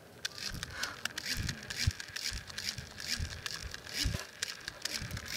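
Small handheld battery-powered fan switched on about half a second in, its motor running with a steady whine. The air from it blows against the microphone in irregular low gusts.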